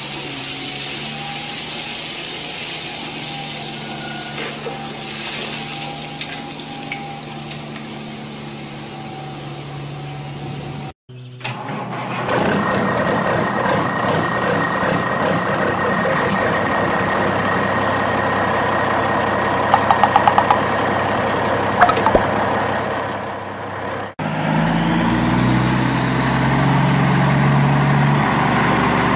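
Heavy truck engine running, dubbed over the toy vehicles as a sound effect. It comes in three separate stretches that cut off abruptly about eleven and twenty-four seconds in, the middle stretch louder and rougher.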